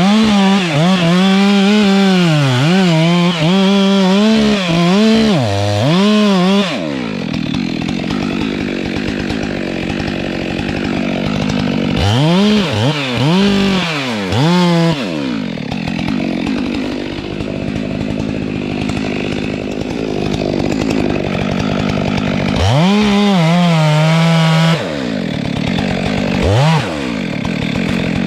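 Stihl MS 462 two-stroke chainsaw at full throttle, its high engine note wavering up and down, then dropping into a lower, rougher sound as the chain cuts into kapok wood. It revs free twice more, about twelve and twenty-three seconds in, and cuts again after each.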